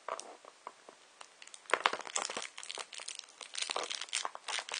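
Thin plastic bag crinkling and rustling in irregular bursts as it is handled and opened. The bursts are sparse at first and come thick and fast after about a second and a half.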